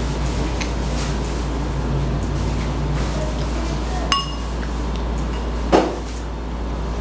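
Metal spoon and fork clinking against a bowl while eating, with a sharp ringing clink about four seconds in and a louder knock just before six seconds, over a steady low hum.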